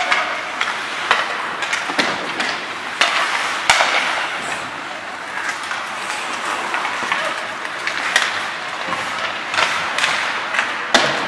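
Ice hockey play: skates scraping across the ice, with sharp clacks of sticks and puck and several harder knocks, the loudest a few seconds in and just before the end.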